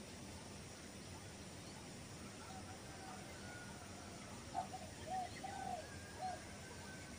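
Faint steady outdoor background noise, with a bird giving four short calls in quick succession about four and a half seconds in, the first the loudest, and fainter thin whistles higher up.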